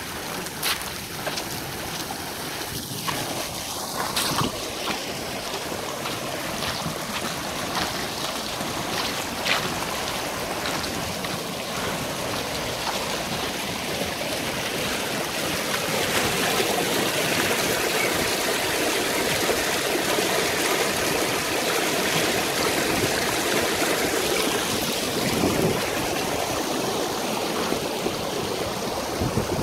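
Muddy rainwater runoff rushing down a roadside ditch: a steady rush of flowing water that grows louder about halfway through. A few brief clicks come in the first ten seconds.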